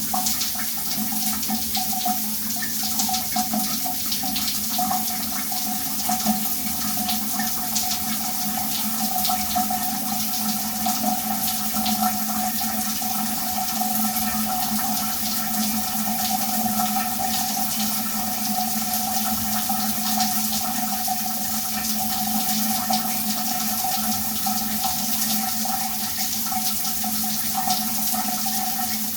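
A shower running steadily: a constant hiss of water spray with fine splashes, and a low steady rumble under it.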